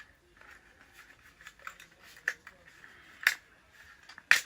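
Tripod being handled and unfolded: scattered light clicks and scrapes of its parts, with two sharper clacks a little past three seconds in and near the end.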